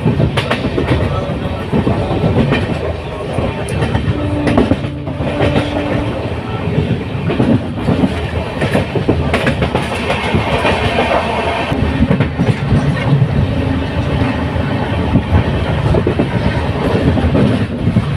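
Moving train: a steady, loud rumble with the wheels clattering over the rails.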